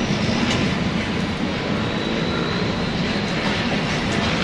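A steady low rumble of background noise, with a few faint light clicks.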